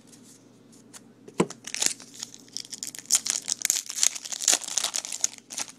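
Foil wrapper of a Topps baseball card pack crinkling and tearing as it is ripped open by hand: a dense, sharp crackle that starts about two seconds in after a single tick.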